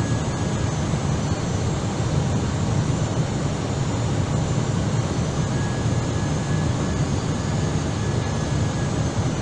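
Steady cockpit noise of an Airbus A319 on final approach with flaps full: an even rush of airflow and engine noise, strongest in a low hum.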